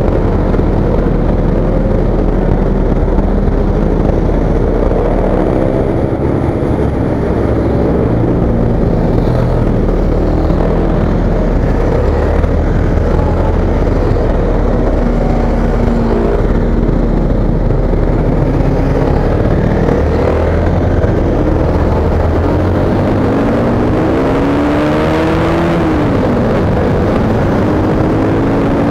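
Honda CBR sport motorcycle's engine heard from the rider's seat while cruising, its pitch rising and falling with throttle and gear changes; near the end it climbs steadily, then drops at a shift. A constant low wind rumble on the microphone runs underneath.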